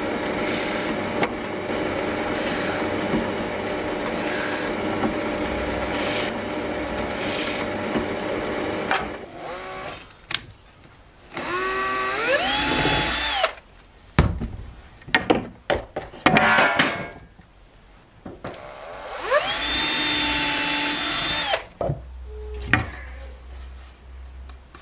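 Bench drill press running together with a dust-extraction vacuum for about nine seconds. Then a cordless drill spins up twice, its whine rising and then holding, as it drills into pine boards, with a few wooden knocks in between.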